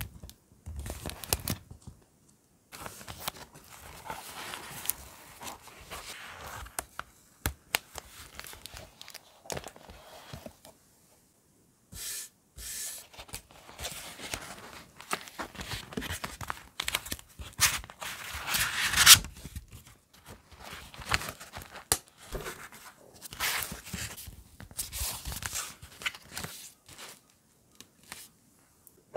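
Close-miked handling of paper notebooks: pages turning and rustling, paper sliding and crinkling, with scattered sharp clicks and taps. The loudest rustle comes about nineteen seconds in.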